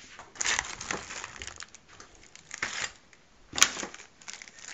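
A cardboard TV box and its packing being handled: short bursts of cardboard scraping and rustling, with one sharp knock about three and a half seconds in.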